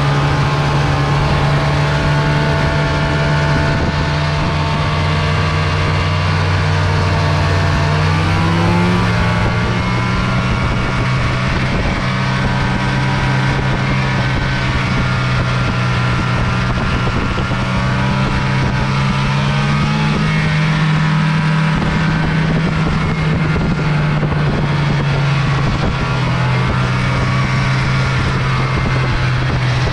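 Snowmobile engine running at trail speed under a rider's throttle. Its pitch steps up about eight seconds in, then sags and climbs again as the throttle is eased and opened.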